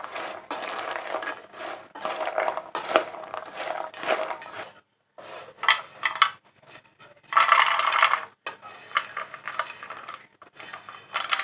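Metal spoon stirring crisp fried macaroni chips in a stainless steel bowl: the hard pieces clatter against the steel while the spoon scrapes the bowl. After a brief silent break about five seconds in, the chips clatter out of the bowl onto a plate as they are tipped and spooned out.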